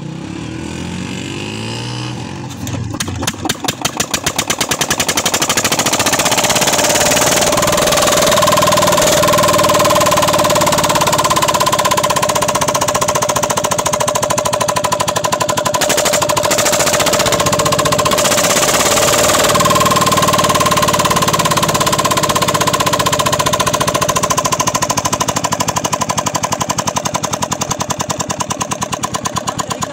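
Black Peter single-cylinder stationary diesel engine spun up by a rope pulled by motorcycles, its knocks speeding up over the first few seconds as it catches, then running at a fast, steady chug. A steady high whistling tone sits over much of it.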